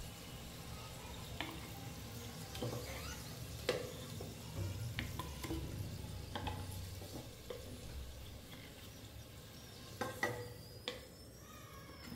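Food sizzling in oil in a pan while it is stirred, a metal spatula scraping and clinking against the pan at irregular intervals, with a few louder knocks near the end.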